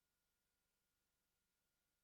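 Near silence: the audio track carries no audible sound.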